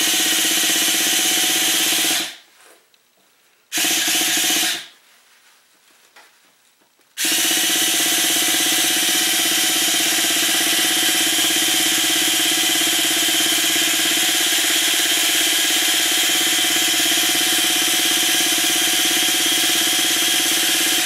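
Electric starter tool spinning a Traxxas nitro engine over through a long starter shaft, a steady whir that does not catch and fire, turning it over to push old fuel out. It runs for about two seconds, gives a short burst about four seconds in, then runs steadily from about seven seconds on.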